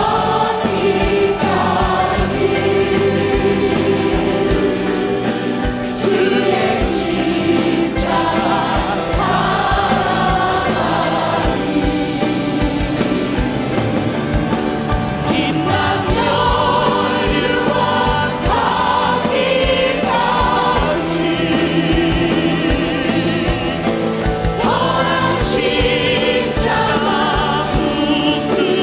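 A church worship gathering singing a gospel hymn together, many voices as a choir, over band accompaniment with a steady drum beat.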